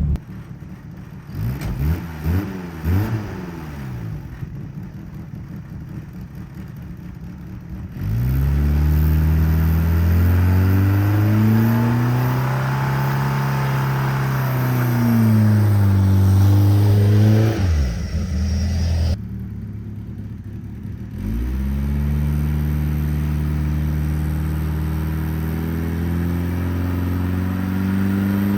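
1989 Fox Body Mustang's 2.3-litre four-cylinder engine revving hard while the car does a donut on dirt: the revs climb about eight seconds in and hold high for several seconds, drop away, then climb again and hold.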